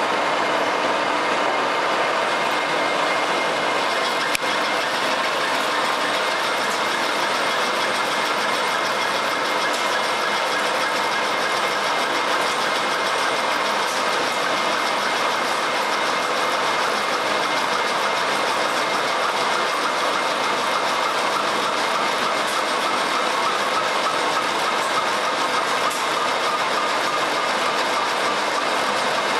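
American Pacemaker engine lathe rough-turning a steel workpiece: the spindle drive running under load while the tool takes a continuous cut. It makes a steady mechanical drone carrying many fixed tones, with no change in pace.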